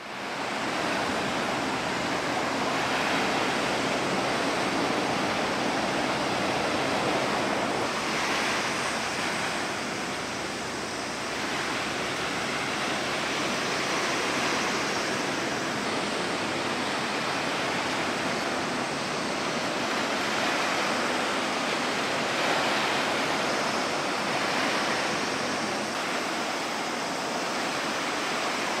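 Choppy sea water washing and splashing in a steady rush of noise that swells gently every few seconds, with wind.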